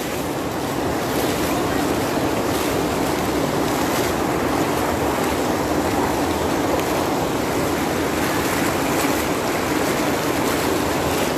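Floodwater rushing fast along a lane, a loud, steady churning rush of water.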